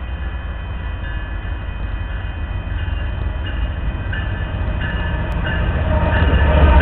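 Diesel locomotives of a Union Pacific freight train, a GE Evolution-series (GEVO) unit leading and a GE AC6000 behind it, approaching with a deep engine rumble. The sound grows steadily louder as the locomotives draw near and pass close by near the end.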